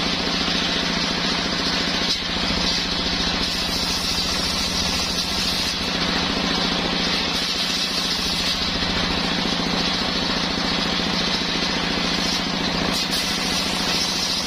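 Homemade engine-driven circular sawmill running steadily, with a fast, even pulse under it, while sawing coconut-palm timber.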